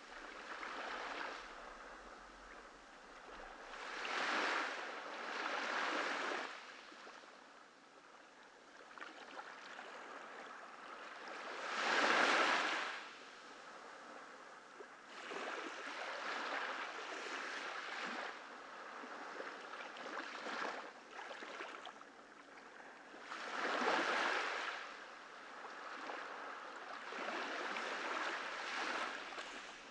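Ocean waves breaking and washing up a beach, each surge swelling and fading over a few seconds. The biggest breakers come about 12 and 24 seconds in.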